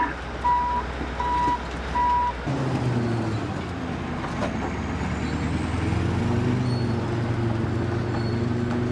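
Three short beeps of a heavy vehicle's reversing alarm, then, after a sudden change about two and a half seconds in, the steady low drone of a bulldozer's diesel engine running.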